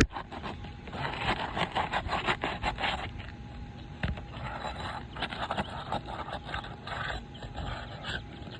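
A tool scraping under asphalt roof shingles to get at a nail. The strokes come quick and dense for a couple of seconds, about a second in, then turn slower and irregular.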